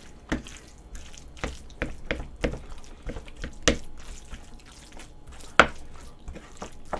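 Curry rice being stirred and mixed in a large bowl with a long utensil: irregular wet, sticky clicks and taps, the loudest a little over halfway through.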